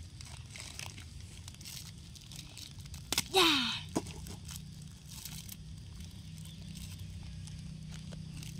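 Plastic wrapping crinkling and tearing, with scattered small clicks, as a drinking straw is unwrapped for a small drink carton. About three seconds in, after two sharp clicks, comes a brief, loud squeal that falls in pitch.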